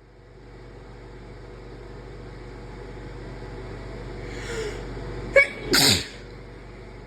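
A person sneezing once, deliberately induced. A soft breathy build-up comes about four and a half seconds in, then a sharp explosive sneeze just after five seconds that ends in a falling voiced burst. It sits over a steady hiss that slowly grows louder.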